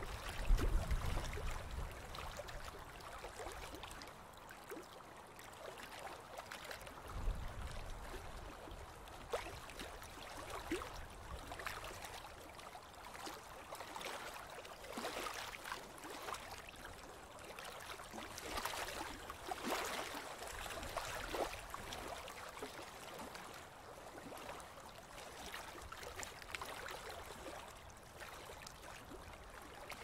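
River water lapping in small ripples, a steady wash broken by many small irregular splashes. There are two brief low rumbles, about a second in and again around seven seconds in.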